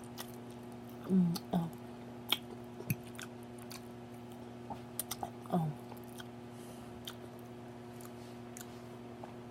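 Close-up chewing of food, with wet mouth clicks and smacks, and a few short hummed murmurs about a second in and again around the middle, over a steady low hum.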